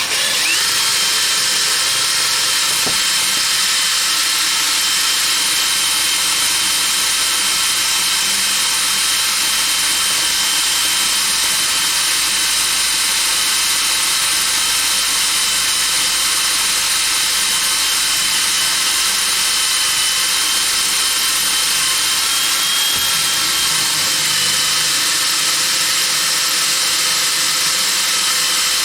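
Electric drill motor whining up to speed and running steadily, driving a number 21 bit to drill a tap hole in angle iron. A high whine holds almost unchanged for nearly half a minute, dipping slightly about three quarters of the way through.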